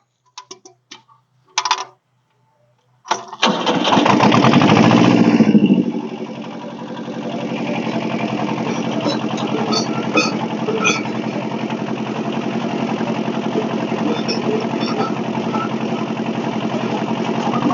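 Kubota mini dozer's engine starting about three seconds in, revving loudly for a couple of seconds, then settling to a steady run.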